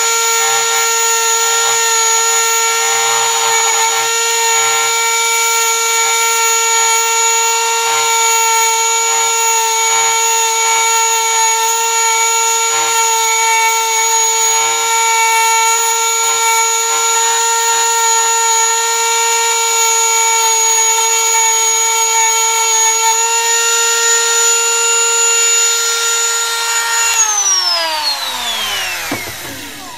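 Handheld rotary tool with a grinding stone bit running at a steady high whine as it grinds weld built up on the cutting jaws of lineman's pliers. About three seconds before the end it is switched off and its pitch falls as it spins down.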